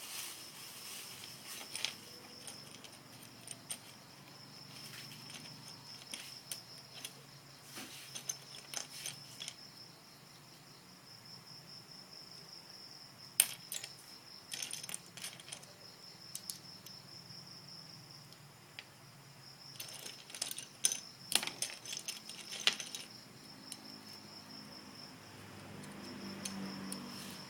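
Small plastic Lego bricks being handled, clicking and rattling against each other in scattered bursts, with a few sharper clacks.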